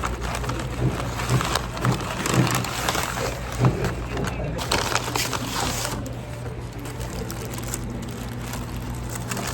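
Coffee-shop background: a steady low hum with indistinct murmur, and a handful of sharp knocks and clinks in the first four seconds.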